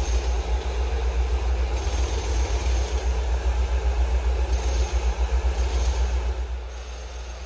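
Wind buffeting the microphone, a heavy flickering low rumble over a steady background hum.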